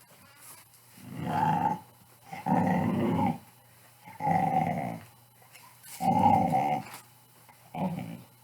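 Pit bull's play growls: five separate growls, each under a second long, with short pauses between them.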